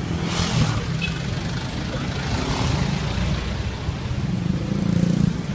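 Car engine running steadily, a low hum, with a brief rush of noise about half a second in.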